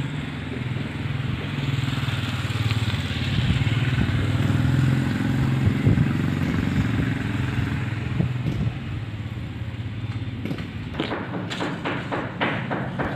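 A motor vehicle's engine passing, growing louder to about five seconds in and then fading away. Several short sharp knocks follow near the end.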